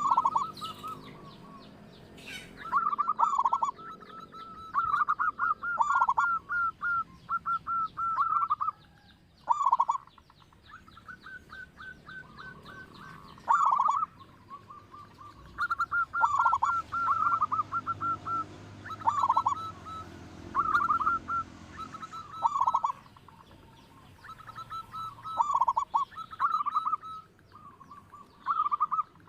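Zebra dove cooing over and over. Each call is a quick run of short trilled notes followed by a lower coo that falls in pitch, and the calls repeat every one to three seconds.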